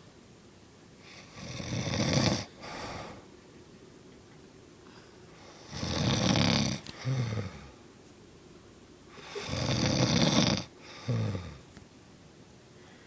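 A woman snoring in her sleep: three loud snores about four seconds apart, each followed by a shorter, fainter second sound.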